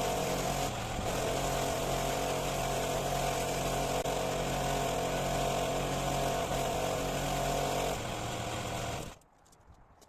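Pressure washer running steadily, a low motor hum under a hissing water spray, which stops abruptly about nine seconds in.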